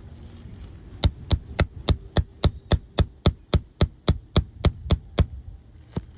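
Roofing hammer tapping rapidly on a brittle asphalt 3-tab shingle: about sixteen sharp, even strikes at three to four a second, then one more near the end.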